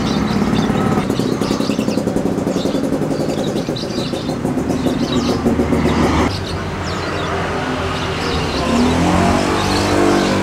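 A motor vehicle engine running, rising in pitch near the end as it revs up, with small birds chirping throughout.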